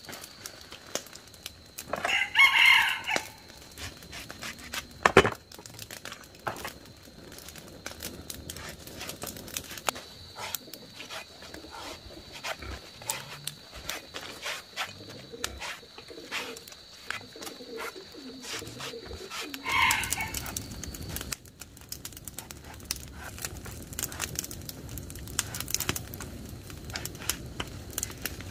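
A rooster crows once about two seconds in and calls again more briefly near twenty seconds in. Scattered clicks and knocks run throughout, with a faint steady high whine for part of the time.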